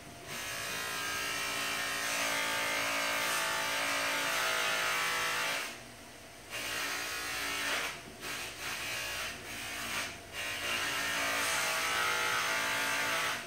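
Electric bench buffer's motor running while a zinc-plated metal part is buffed on its wheel to bring up a shine. It runs steadily for about five seconds, drops away briefly, then comes back in shorter uneven spells and cuts off near the end.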